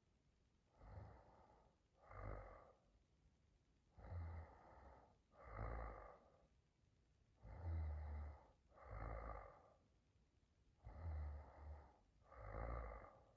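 Young woman snoring softly in her sleep, in slow, even breaths. Each breath in and out comes as a pair of soft, breathy snores, the first of each pair carrying a low rattle, one pair about every three seconds, four times.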